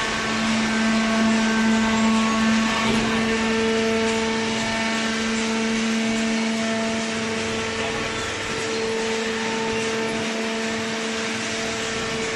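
Hydraulic cardboard baler running, a steady machine hum with a strong low tone over even noise.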